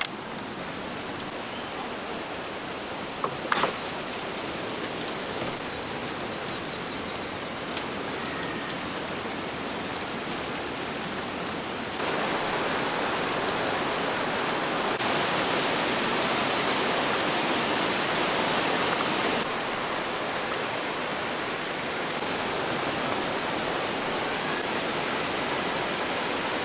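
Mountain stream swollen by monsoon rains, rushing steadily over rocks in a strong current. It gets louder partway through, with a brief sharp click early on.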